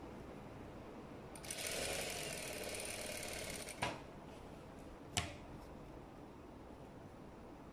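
Electric sewing machine stitching a seam through denim in one run of about two seconds, starting about a second and a half in. Two sharp clicks follow about a second apart.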